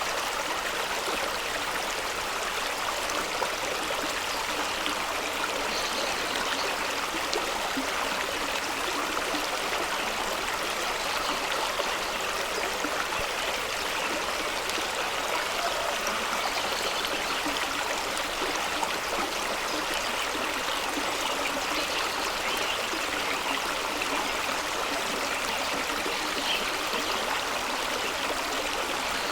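Fast-running stream rushing and splashing over rocks in a steady, unbroken wash of water noise.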